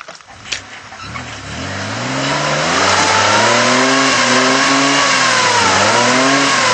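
Off-road 4x4's engine revving hard under load as the vehicle climbs a steep, rutted dirt gully. The revs rise about a second in and hold high, then dip briefly near the end and climb again. A few sharp knocks come at the very start.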